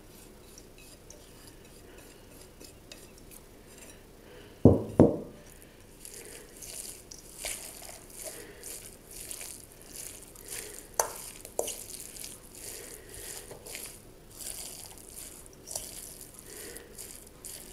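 Hands kneading a minced-meat stuffing in a stainless steel bowl: a steady run of short, wet strokes about two a second, with now and then a sharp click against the bowl's metal side. About five seconds in, two loud knocks close together as the emptied parsley bowl is set down.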